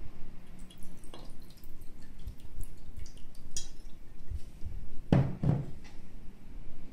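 Whisky poured from a bottle into a glass tumbler over ice, with scattered clinks and drips. Two louder dull knocks come a little after five seconds in.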